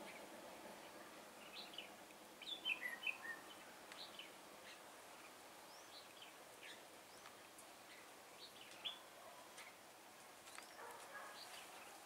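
Red-whiskered bulbuls calling faintly: scattered short, high chirps, with a quick run of louder notes about two and a half seconds in and a single sharp note near nine seconds.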